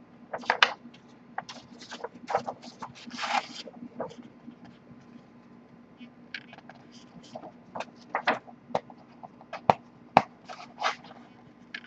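Paper and thin cardboard rustling and scraping as a LaserDisc gatefold jacket is handled and its printed paper insert pulled out and unfolded, in irregular short bursts with a couple of sharp taps near the end.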